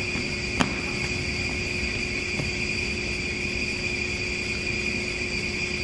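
A sharp footfall or heel click on a hardwood gym floor about half a second in as drill cadets close into line, with a fainter one a couple of seconds later, over a steady room hum with a high whine.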